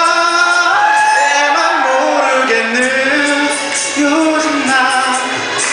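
A male singer singing a Korean love song through a microphone over backing music, drawing out long notes that glide up and down.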